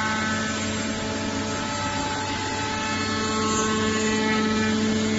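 Five-axis CNC router's spindle running steadily while machining solid wood: a constant whine made of several held tones over a hum and a haze of cutting noise.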